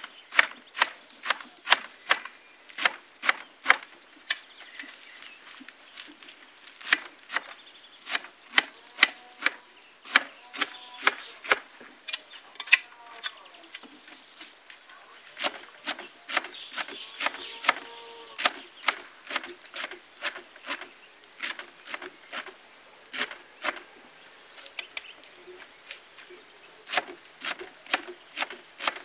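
Knife chopping fresh green herbs against a metal tray: a run of sharp cuts, roughly one to two a second, unevenly spaced.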